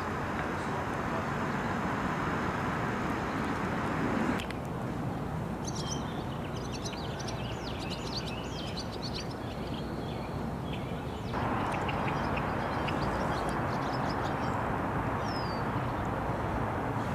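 Steady outdoor noise, which cuts at about four seconds to a stretch of many small birds chirping and whistling in a marsh. At about eleven seconds it cuts back to steady noise with a low hum under it.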